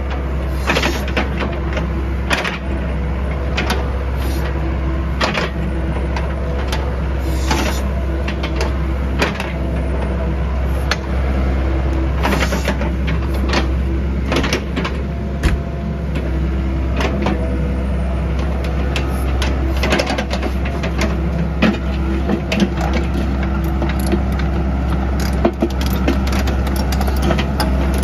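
Doosan DH55 mini excavator's diesel engine running steadily, with hydraulics working as the boom, arm and bucket move, and scattered clanks and knocks from the bucket and tracks on rubble.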